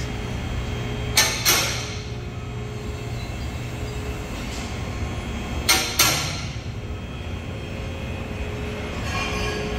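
Four-post car lift being raised: the steady hum of its hydraulic pump motor, with a pair of sharp metal clanks twice (about a second in and near six seconds in) as the safety latches drop over the lock rungs.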